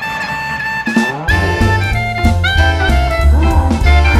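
Jazz music with brass horns playing a run of held notes; a heavy bass line and drums come in about a second in.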